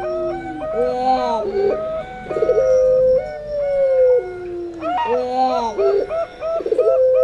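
Doves cooing together: puter pelung give long drawn coos that slide down in pitch, starting twice, over the quicker, choppy cooing of perkutut (zebra doves).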